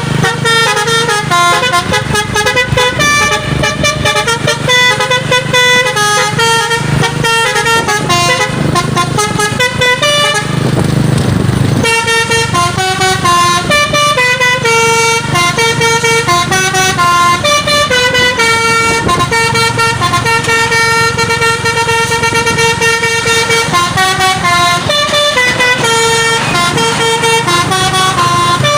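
Truck's 'basuri' telolet horn playing a melody, its notes stepping from pitch to pitch almost without pause, over the low hum of the truck's engine running. About ten seconds in, a rush of noise covers the tune for a second or two.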